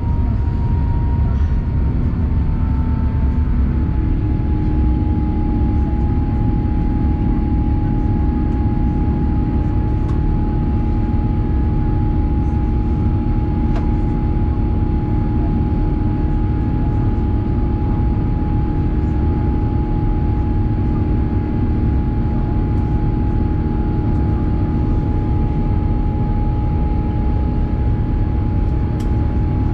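Airbus A350-900's Rolls-Royce Trent XWB turbofan engines and airflow heard from inside the cabin during the climb: a steady deep rumble with an engine whine that steps down slightly in pitch about three seconds in, then holds steady.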